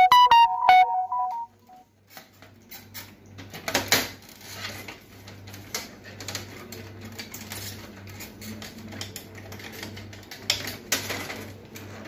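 A short chime of a few pitched notes, falling in pitch, right at the start. Then clicks, knocks and rattles of the HP LaserJet printer's plastic casing being pried and pulled loose by hand, with louder clatters about four seconds in and again near the end.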